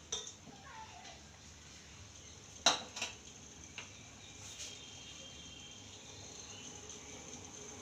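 Two sharp metallic clinks of a utensil against a cooking pot, about two and a half and three seconds in, then a couple of lighter taps, over a faint steady hiss.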